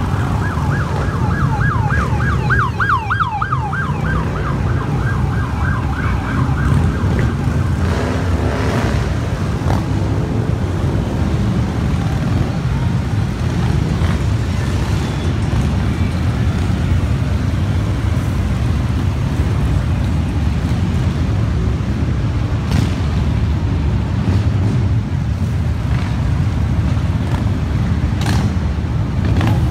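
Police car siren yelping rapidly up and down for the first few seconds, then a steady low rumble of many motorcycle engines as a large convoy of cruiser motorcycles rides past.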